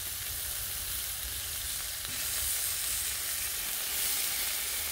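Tri-tip steaks sizzling steadily on a hot griddle plate as they sear at the end of a reverse sear, with a low rumble underneath.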